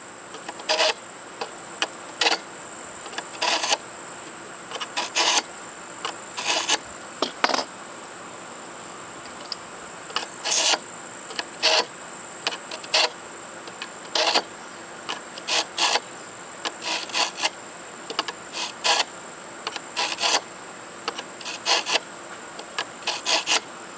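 Short rasping strokes of a SharpPal handheld sharpener's carbide cutters scraping along the edge of a rusty steel lawn mower blade, taking metal off as an edge forms. The strokes come irregularly, about one a second, with a short pause near the middle. A steady high-pitched whine runs underneath.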